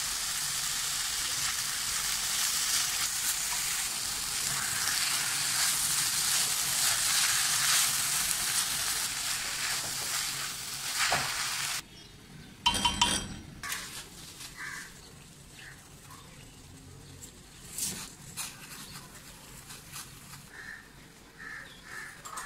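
Chowmein noodles and vegetables sizzling in a hot oiled wok as they are stir-fried with a spatula, a steady loud sizzle. About twelve seconds in the sizzle cuts off suddenly, followed by a brief clatter and then only faint scattered clinks.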